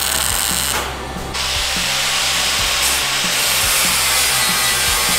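MIG welder tack-welding stainless steel, a crackling hiss for about a second. After a short break, a hand grinder runs steadily against steel, throwing sparks.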